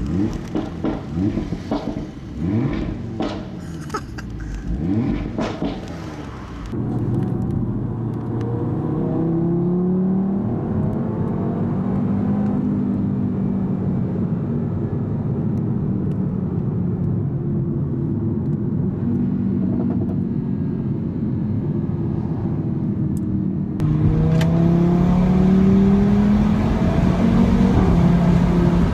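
Audi RS3's turbocharged five-cylinder engine heard from inside the cabin, pulling through the gears, its pitch rising and dropping at each shift. Sharp exhaust pops in the first few seconds; near the end it gets louder and climbs again under hard acceleration.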